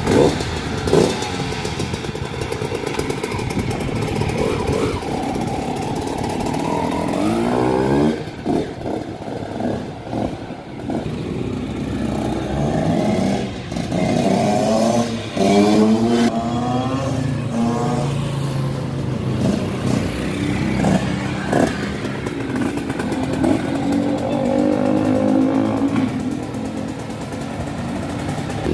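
XN 150 Enduro dirt bike's 150cc two-stroke engine being ridden and revved. Several times its pitch climbs in quick steps and drops back as it accelerates up through the gears.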